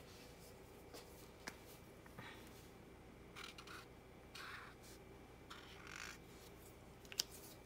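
Faint scratchy rubbing of a black felt-tip marker on paper, colouring in an area in several short strokes, with a few light clicks.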